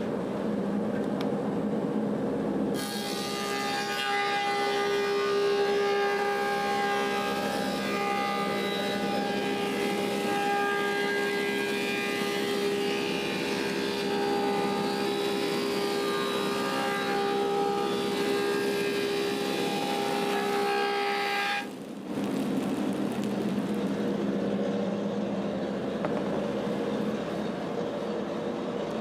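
Woodmaster 725 thickness planer running. About three seconds in, a spalted apple slab enters the cutterhead and the cut adds a loud, steady whine with a high hiss. This lasts for about nineteen seconds, then cuts off suddenly as the board clears, leaving the machine running idle.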